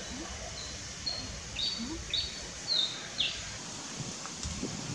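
Birds chirping: a quick run of short, high notes, several dropping in pitch, over about the first three seconds, against a steady outdoor background hiss.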